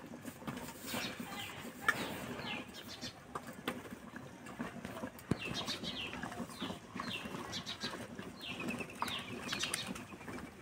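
Soft, wet squelching of flour dough being kneaded by hand in a steel plate, with a few sharp clicks, while birds call with short, repeated falling chirps.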